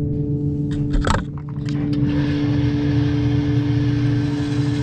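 Steady hum of indoor range machinery, with a short clunk about a second in. From about two seconds an electric target carrier runs steadily, bringing the paper target back up the lane.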